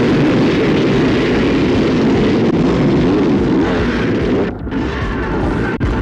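A pack of two-stroke motocross bikes revving hard together as they launch off the start line, a loud, dense wall of many engines at once that dips briefly about four and a half seconds in.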